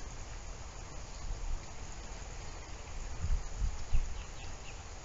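Outdoor background noise: low wind rumble on the microphone that swells twice about three seconds in, with a few faint high chirps near the end.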